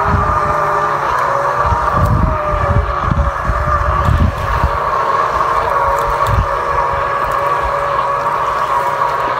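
Steady motor hum of a small boat out on the water, holding one pitch, with wind buffeting the microphone in irregular low gusts.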